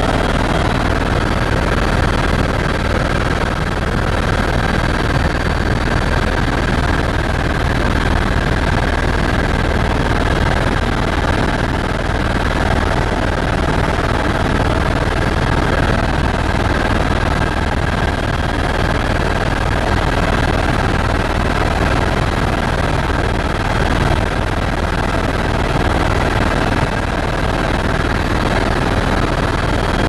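Steady engine and rotor noise of a helicopter in flight, heard inside the cabin: a constant loud rumble with faint steady whining tones above it.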